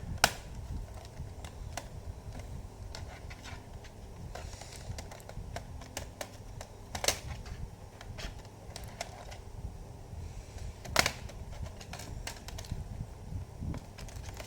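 Plastic snap clips of a laptop's bottom access cover being pried loose: three sharp clicks, about a quarter second in, about halfway, and about three quarters through, with lighter plastic ticks and handling noise between them.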